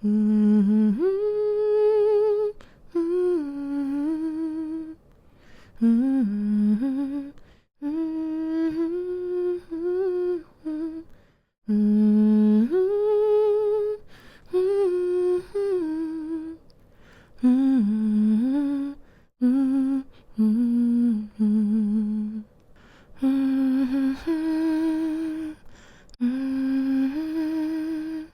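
A woman humming a slow, soothing lullaby-like tune to lull a baby to sleep, in held, gently sliding notes and short phrases broken by brief pauses for breath.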